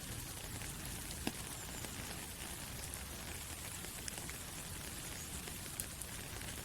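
Soft rain falling through forest trees: a steady hiss with a few single drops ticking out clearly now and then.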